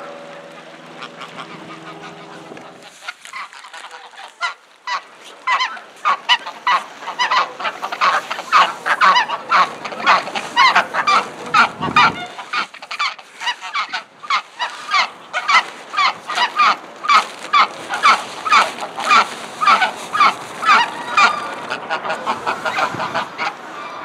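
Flock of greylag geese honking: many short calls in quick succession, starting about five seconds in and carrying on almost to the end. A steady low hum fills the first three seconds before the honking.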